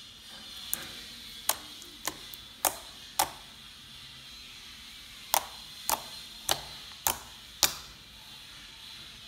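Fingertips poking into glitter slime, each poke a short sharp click. There are ten, in two runs of five about half a second apart, with a pause of about two seconds between the runs.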